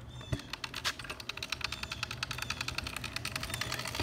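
BMX bike's freewheel hub ticking in a fast, even run of clicks as the bike coasts, over the low rumble of tyres on asphalt, with a thump about a third of a second in.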